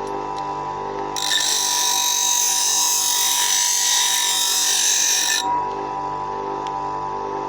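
Bench grinder running with a steady motor whine; about a second in, a steel scissor blade is pressed to the grinding wheel, giving a loud hissing grind that lasts about four seconds and stops suddenly, leaving the motor spinning on.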